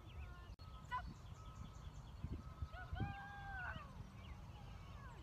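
Faint outdoor birdsong: many short chirps and quick runs of repeated falling notes. About three seconds in comes one longer, held call that bends down in pitch at its end. Wind rumbles low on the microphone throughout.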